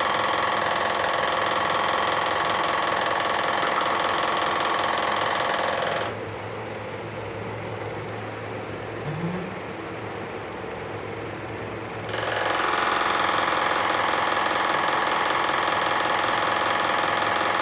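A steady mechanical running noise with a constant low hum. Its higher part cuts out abruptly about six seconds in and comes back about six seconds later.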